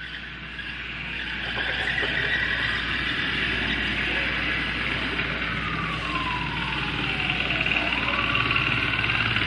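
Atmospheric soundtrack of a contemporary dance routine over a theatre's speakers: a wash of noise that swells louder over the first few seconds, with a slow falling, siren-like glide about halfway through and a short rising sweep near the end.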